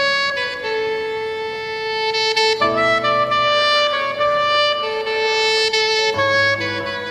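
Background music: a saxophone melody of long held notes over chords.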